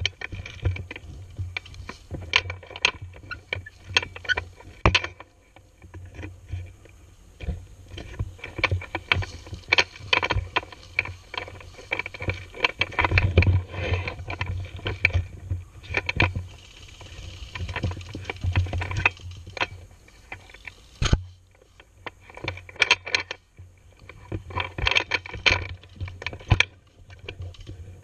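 Footsteps crunching through dry leaf litter, with gear rustling and knocking against the camera and a low rumble of handling noise; irregular clicks and knocks throughout, the sharpest one a little over twenty seconds in.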